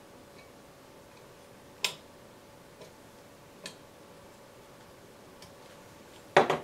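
A few isolated sharp clicks and taps of a hex key and hands against the metal gantry frame and filament holder of a 3D printer being assembled, the clearest about two seconds in and a louder pair near the end, over a faint steady hum.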